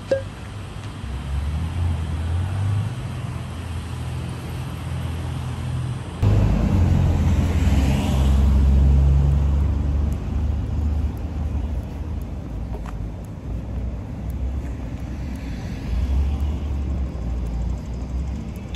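Street sound outdoors: road traffic going by, with wind rumbling on the microphone. It gets louder from about six seconds in.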